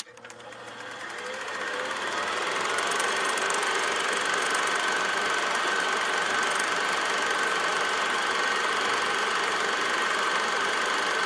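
Film projector running: a steady mechanical whirr with a high whine, fading in over the first two or three seconds.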